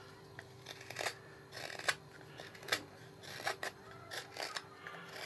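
M390 steel knife blade, finished on fine 2/1 CBN stones, shaving thin strips off an alder stick in short strokes, each cut a brief crisp scraping hiss, about one a second. A pleasant cutting sound, the sign of the freshly restored sharp edge biting cleanly into the wood.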